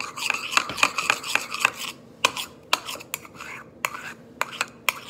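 Metal spoon stirring a thick soap mixture in a bowl, scraping and clinking against the bowl's sides in quick, irregular taps.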